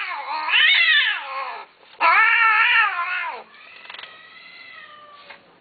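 A cat giving long, drawn-out meows: two loud ones, then a fainter one that falls in pitch.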